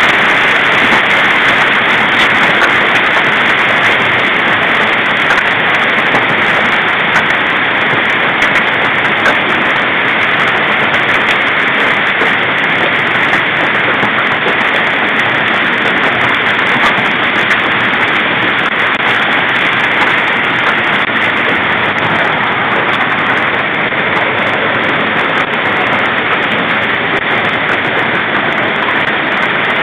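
Loud, heavy hail pelting down in a dense, steady downpour, a continuous rush of hailstones striking the ground and nearby surfaces with no let-up.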